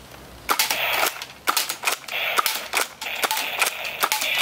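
Nerf Alpha Strike Hammerstorm foam-dart blaster being cocked and fired repeatedly: a quick, uneven series of about a dozen sharp plastic clicks and pops.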